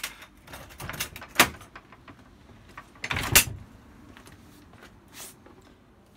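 A door being handled and shut, with knocks and footsteps as someone walks into a room; the loudest knock comes about three seconds in.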